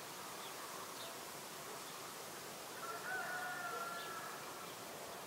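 Quiet outdoor ambience with a few faint high chirps, and one faint, drawn-out call about three seconds in, held at one pitch for about a second.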